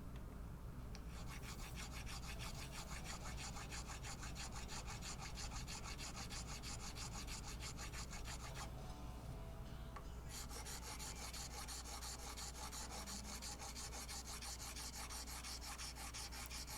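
A fine wood rasp filing down the cured carbon-fibre and epoxy wrap on a guitar headstock in quick, even strokes. The filing stops for about a second and a half near the middle, then picks up again.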